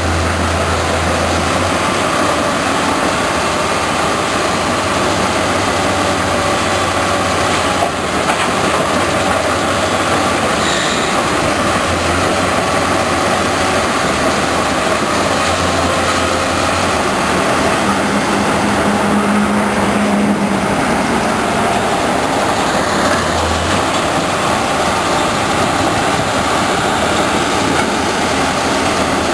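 Nordberg mobile crusher running and crushing brick and concrete demolition rubble, together with the diesel engine and hydraulics of a Kobelco SK210 excavator loading it: a loud, steady, dense mechanical noise.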